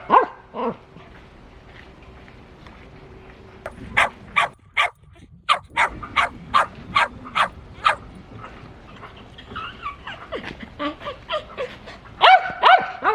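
Shetland sheepdog barking: a single bark, then a quick run of about a dozen sharp, high barks at roughly three a second. Softer yips and whines follow, then a loud burst of barks near the end.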